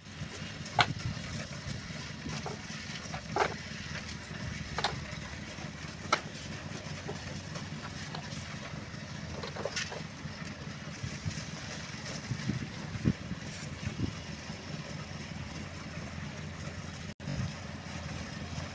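JCB 3DX backhoe loader's diesel engine running steadily as the machine drives, with several sharp knocks scattered through the first ten seconds.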